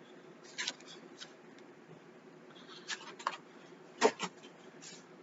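Handling noises from firework packaging: a few short clicks and rustles, the sharpest about four seconds in, over a faint steady hum.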